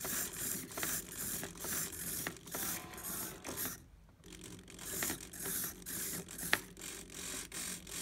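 Small RC hobby servos whirring through their gears in short bursts, two or three a second, as they swing back and forth under transmitter stick inputs. The bursts pause briefly about four seconds in, and there is a sharp click a little later.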